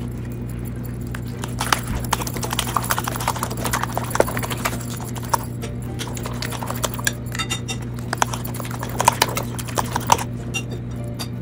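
A fork beating eggs and chopped herbs in a ceramic plate. Its tines click rapidly and irregularly against the plate, starting about a second and a half in.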